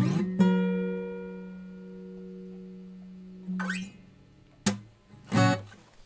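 Morris MF-255TS acoustic guitar: a final strummed chord left to ring and slowly die away. About three and a half seconds in, the strings are damped with a brief brushing sound, followed near the end by a sharp click and a short rustle of handling noise.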